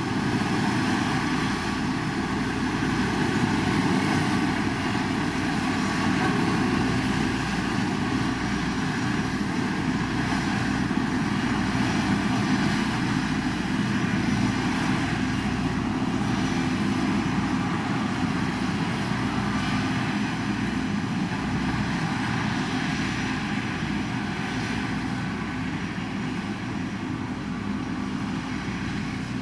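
Heavy road-construction machine's diesel engine running steadily, a constant drone that eases slightly toward the end.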